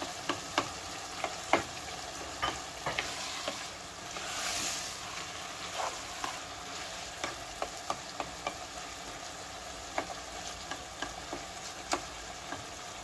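Chicken mince and tomatoes frying in a non-stick pan, a steady sizzle, while a spatula stirs through it with scattered sharp clicks and scrapes against the pan. The hiss swells louder briefly about four seconds in.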